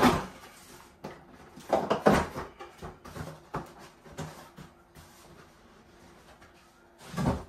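Cardboard packing inserts being lifted and pulled off a plastic-wrapped RC truck: rustling and scraping in several short bursts, loudest about two seconds in, with another just before the end.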